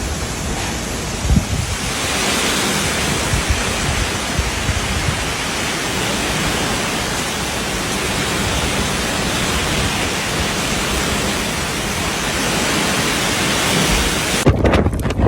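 Typhoon storm noise: a loud, steady rushing hiss, with wind buffeting the microphone in scattered low thumps. Near the end the high hiss cuts away suddenly, leaving a duller low rumble.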